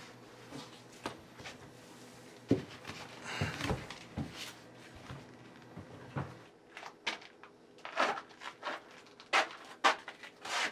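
Scattered wooden knocks, thumps and scuffs as people climb down through a trapdoor hatch, with a rustling scrape about three and a half seconds in and a quicker run of sharp clicks and taps in the last few seconds.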